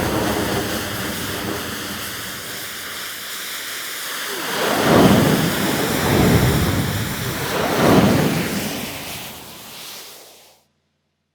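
Synthesized TIE fighter fly-by sound effect, built from a looped elephant trumpet layered with an analog synth and a passing-train recording. A dense, noisy howl swells loudly three times, then fades out into silence near the end.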